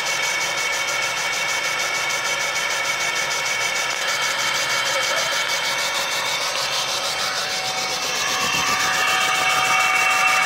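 Laser engraving machine working on a metal tube: a steady buzzing hiss with several high whining tones. About eight seconds in, the tones shift and the sound gets a little louder.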